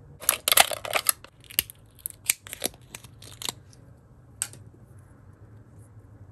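Crisp clicks and crackles of small plastic doll accessories being handled in the fingers: a quick flurry in the first second, then a string of single clicks, the last about four and a half seconds in.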